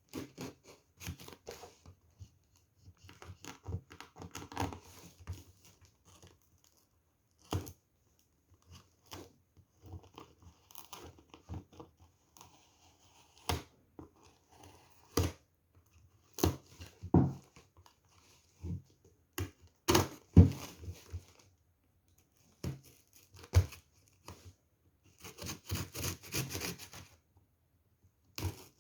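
Funko Pop packaging being opened by hand: tearing and crinkling, with irregular clicks and knocks as the box is handled. There is a dense run of crinkling near the end.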